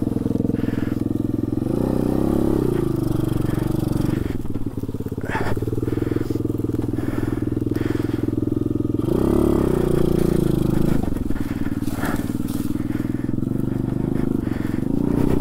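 A Trailmaster TM29 pit bike's 125cc four-stroke engine running under load as it is ridden, its revs rising and falling several times with a brief dip about four seconds in. A few sharp knocks and cracks are mixed in.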